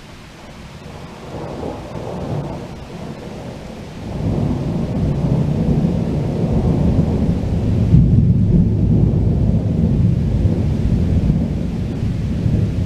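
Thunder rolling in a thunderstorm: a deep rumble that builds gently, swells sharply about four seconds in and keeps rumbling loudly, with the hiss of rain underneath.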